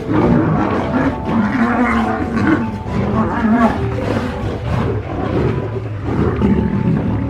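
Lioness roaring in a run of rough, grunting calls, about two a second, starting abruptly, over soft background music.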